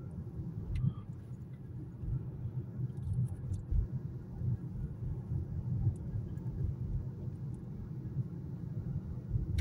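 Road noise inside a moving car's cabin: a steady low rumble from the engine and tyres while the car drives along.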